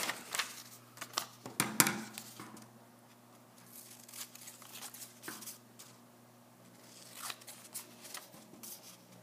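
Scissors cutting through a strip of paper: a series of separate snips, most of them in the first couple of seconds, then a quieter stretch and a few more snips later on.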